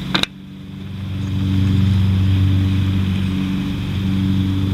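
A steady low mechanical hum, like a motor running, with a sharp click just after the start. The hum drops at the click, then builds back up over the next second or two.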